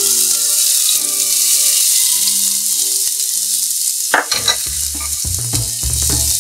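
Diced onion and carrot hitting hot oil in a frying pan, sizzling steadily. From about four seconds in, a spoon stirs the vegetables around the pan with a run of irregular scraping knocks.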